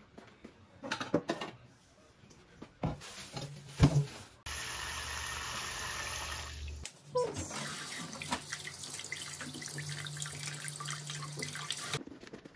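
A few knocks of kitchenware, then a kitchen faucet's pull-down spray head running water onto raw chicken in a stainless steel bowl of water in the sink. The water runs in two steady stretches and cuts off suddenly near the end.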